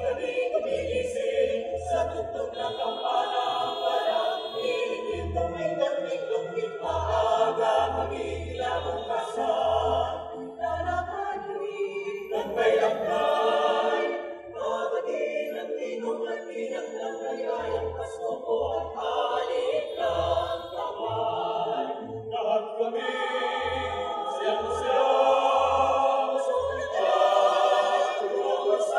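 Mixed choir of men and women singing in harmony, unaccompanied, with held and moving notes.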